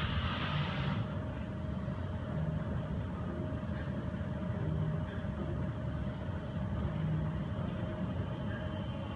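A steady low rumble with a faint constant hum. Music from before fades out about a second in.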